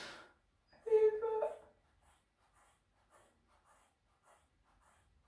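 Scissors snipping through a thick braid of hair: a run of faint, short crunching cuts, about three a second. Before them a short breath and a brief hummed sound from a woman's voice about a second in.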